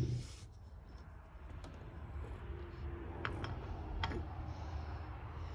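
Small metallic clicks and handling sounds of hand tools and alternator parts being worked on, with two sharper clicks a little past the middle, over a low steady hum.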